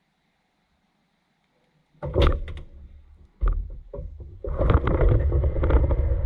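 Dishwasher running with water spray and splashing inside, starting suddenly after a quiet pause about two seconds in, with irregular knocks. It cuts out briefly and starts again.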